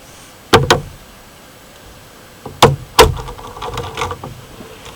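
Air rifle's loading mechanism being worked: two pairs of sharp metallic clicks and clunks about two seconds apart, the second pair followed by a short faint ringing, as the magazine is refilled with pellets and the action cycled.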